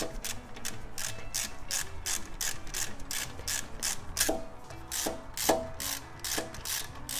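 Hand ratchet wrench clicking in a steady run of sharp clicks, about three a second, as bolts are run in on an engine-to-transmission assembly, a few clicks carrying a short metallic ring.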